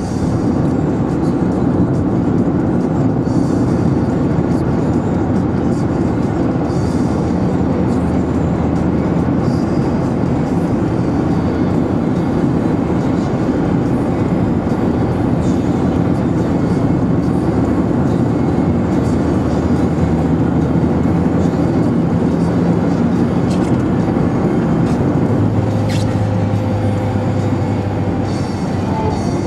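Steady road noise of a car driving at speed, heard inside the cabin: engine and tyres on a wet road, with low engine tones that shift as the speed changes.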